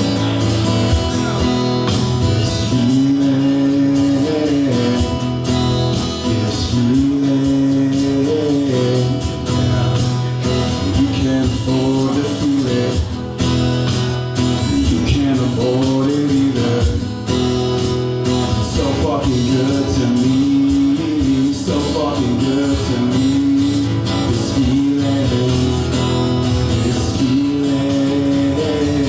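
Live music: a strummed acoustic guitar with a sliding melody line above it over a steady low bass.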